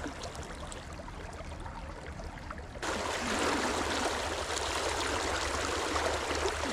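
River water flowing steadily over stones, a continuous rushing hiss; it suddenly becomes louder about three seconds in.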